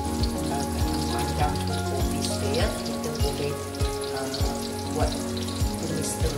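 Sliced chillies and shallots sizzling as they fry in hot oil in a wok. Background music with a steady beat plays over it.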